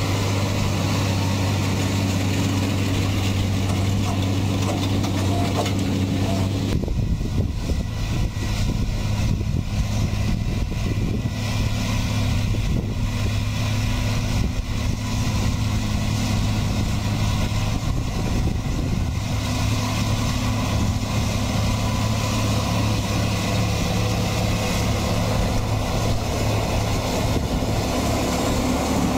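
Deutz-Fahr M650 tractor running steadily as it pulls a Pöttinger Europrofi 5510 Combiline loader wagon, whose pickup is gathering hay from the swath. About seven seconds in, the sound changes to a noisier mix with the engine still running under it.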